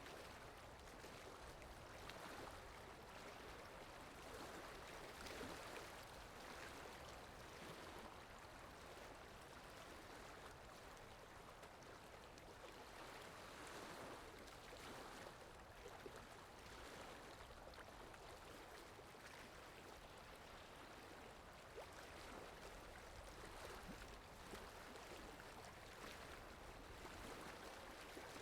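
Faint, steady rain: an even hiss with scattered drop taps.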